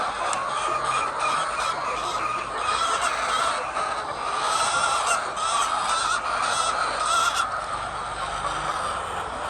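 A flock of laying hens clucking and calling, a steady dense chatter of many birds with short sharp calls layered on top.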